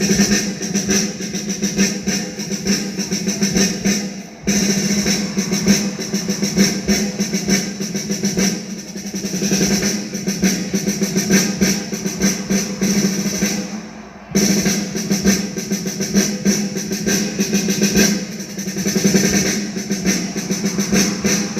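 Drum-led music with rapid snare-drum rolls and bass drum over sustained tones. The music drops briefly and comes back sharply about four seconds in and again about fourteen seconds in.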